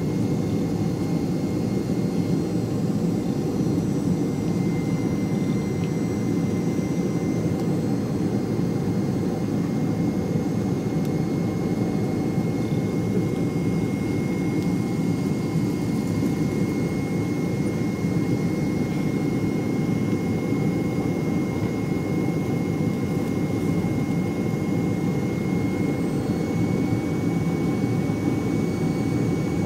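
Steady airliner cabin noise during the descent to land: a dense rumble of engines and airflow with a thin high whine over it. The whine steps up slightly in pitch about five seconds in and again near the end.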